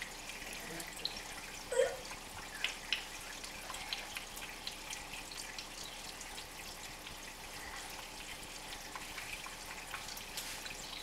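Aquarium water bubbling and trickling steadily, with many small drip-like pops and a slightly louder plop about two seconds in.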